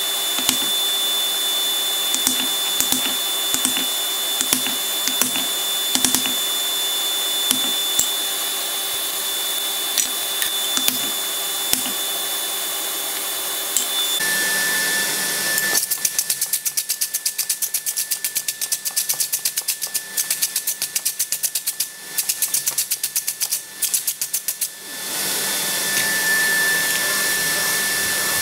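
Steady whoosh of a coal forge's blower, with soft knocks about every 0.7 seconds in the first half as a wooden mallet taps the hot iron bar on a wooden block. Past halfway the sound changes and a rapid run of sharp clicks goes on for about ten seconds, then stops.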